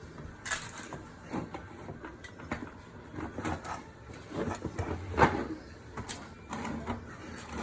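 Irregular light knocks, clicks and rustles of kitchen things being handled and put into place, the firmest knock about five seconds in.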